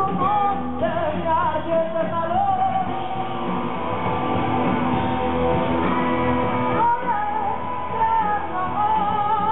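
Live rock song: a woman singing over electric guitar and bass, heard from the audience with the sound cut off above the middle range.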